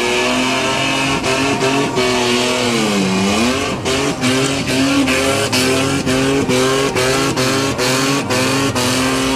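Holden Commodore VN–VS 3.8-litre V6 engine making its 'mang mang' drone, the pitch stepping up and down again and again with a deep dip about three seconds in, over a steady hiss.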